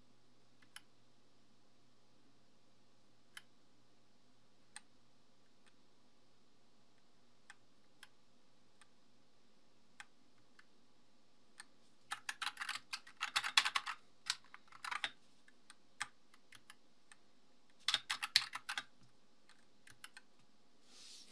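Glorious GMMK 2 mechanical keyboard being typed on: single keystrokes every second or two, then two quick flurries of rapid key presses, one about halfway through and another near the end.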